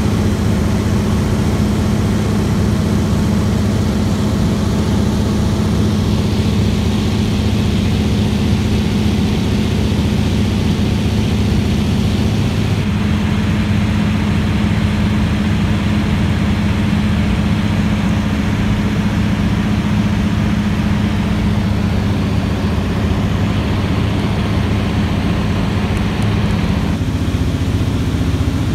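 Seaplane's piston engine and propeller droning steadily, heard from inside the cabin. The drone's tone shifts abruptly twice, about 13 and 27 seconds in.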